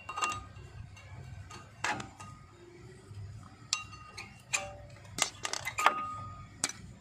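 Maruti Swift Dzire front disc-brake caliper clicking against its carrier bracket as it is levered back and forth with a metal tool: irregular sharp metallic clicks with a short ring, several in quick succession about five to six seconds in. The free play comes from worn caliper slide pins and bracket bushings, the cause of the knocking heard from under the car on rough roads.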